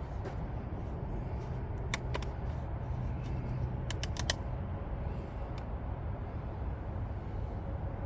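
Motor oil pouring from a plastic jug into a diesel engine's oil filler, a steady low rush, with a few light clicks about two and four seconds in.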